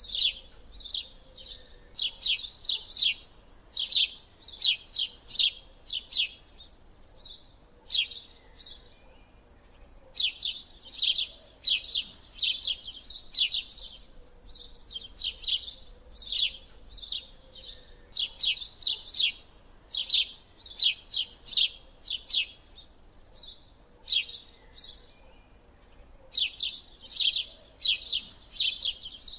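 A small bird chirping: quick runs of short, sharp, high-pitched chirps, several a second, repeating every few seconds with brief pauses between runs.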